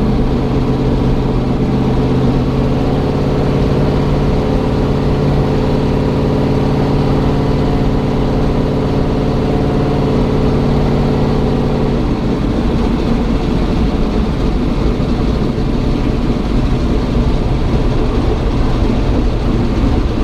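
A turbocharged LM7 5.3 L V8 in a Chevy S-10 pickup, heard from inside the cab while driving, running with a steady drone. About twelve seconds in, the even tone drops away into a rougher, less even engine and road noise.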